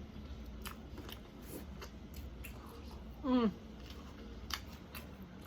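Close-miked chewing of spicy chicken wings, with scattered wet mouth clicks and smacks. About three seconds in comes a short vocal sound that falls in pitch, a reaction to the heat.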